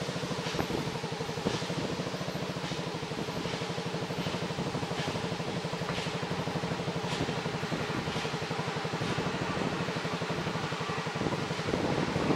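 A small vehicle engine running steadily with a fast, even pulse, with a few light clicks and rattles over it.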